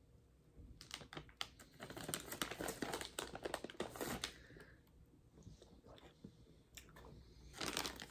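Plastic candy bag crinkling and crackling in quick clusters of small clicks as hands reach into it. It runs from about a second in to about four seconds in, goes quieter, then comes again near the end.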